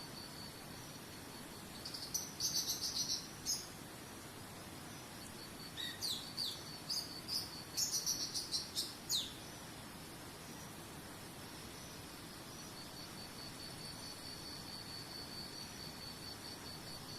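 Cricket-like insect chirping steadily in quick high pulses, while a bird calls in two bursts of rapid high notes, some sliding downward, about two and six seconds in.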